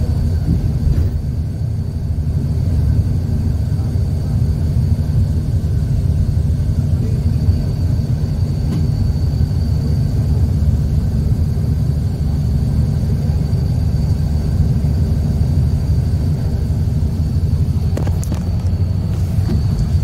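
Steady low rumble of road and engine noise heard from inside a moving vehicle at highway speed, with a faint steady high whine over it. A few light knocks come near the end.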